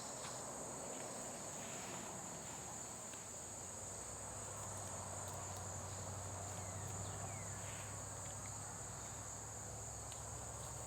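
A steady, high-pitched chorus of insects, typical of crickets, droning without a break. A faint low hum joins it about four seconds in.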